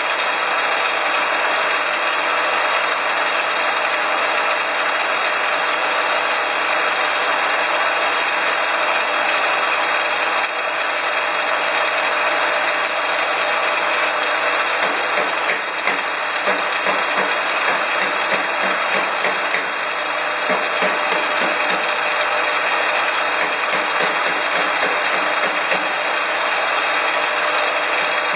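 Soy protein chunk extrusion line running: a loud, steady mechanical rattle and clatter as the hot extruded chunks pile up.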